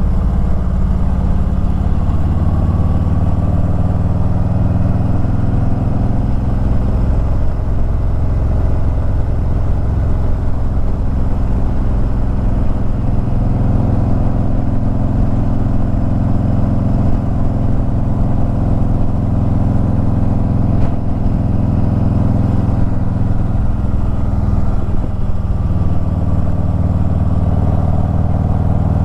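Harley-Davidson Ultra Limited's V-twin engine running under way, its pitch rising and falling with the throttle. Heavy wind rumble on the microphone.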